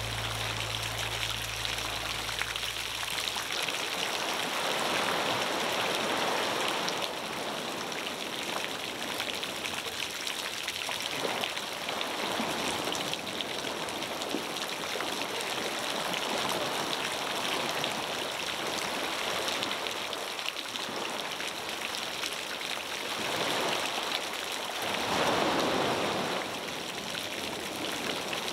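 Small ocean waves washing onto a stony beach: a steady rush of surf that swells every several seconds, loudest about 25 seconds in. The tail of background music fades out in the first few seconds.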